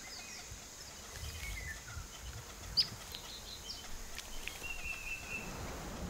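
Quiet bush ambience: scattered short, high bird chirps over a low hiss, with one sharp click about three seconds in.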